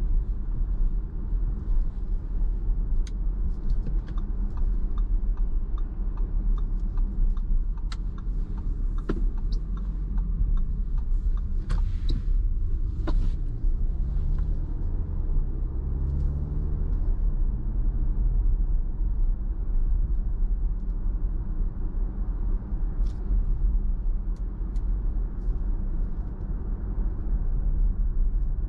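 Steady tyre and road rumble heard inside the cabin of a 2021 Audi Q5 at town speed, with a low hum from its 2.0-litre turbocharged four-cylinder. The engine note rises a little about halfway through, and a few light clicks and knocks come through from the road.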